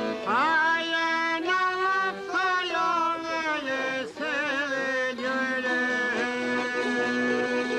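A man singing an Albanian folk ballad over the steady plucked accompaniment of a çifteli and a sharki. The voice swoops up into its first note, wavers through quick ornaments midway, and ends on one long held note.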